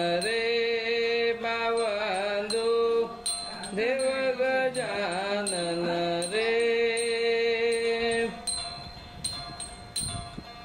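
Background music: a melody of long held notes that slide between pitches, over light tapping percussion. It grows quieter near the end.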